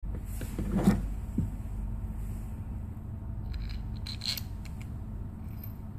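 Clicks and knocks of Walther P22 pistol parts being handled, with a sharp knock about a second in and a cluster of lighter clicks around four seconds, over a steady low hum.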